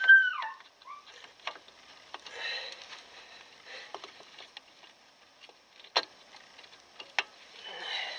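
Rear drum brake shoes and their springs being fitted by hand: a short falling squeak at the start, then scattered sharp metallic clicks and scraping as the shoes and springs are worked into place on the backing plate.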